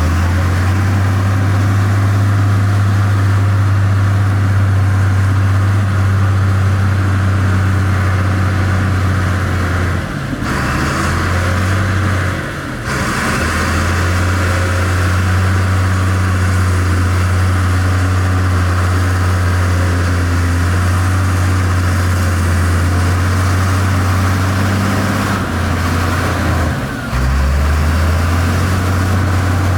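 Heavy diesel construction machinery engine running with a steady low drone, broken by a few abrupt cuts.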